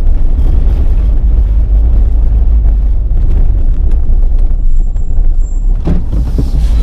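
Car driving slowly along a city street: a steady, deep rumble of engine and road noise.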